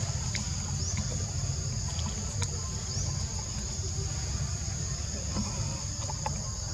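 Forest insects droning steadily at a high, even pitch over a low rumble, with a few faint clicks and a couple of short chirps.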